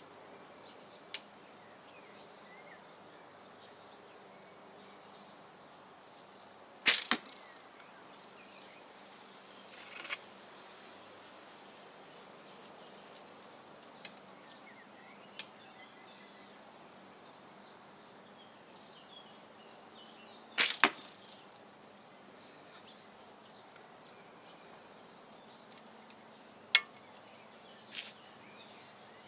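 Bear Grizzly recurve bow shooting arrows: the sharp snap of the Dacron string on release, followed a fraction of a second later by the arrow striking the target. Several shots, the loudest about seven seconds in and again about twenty seconds in.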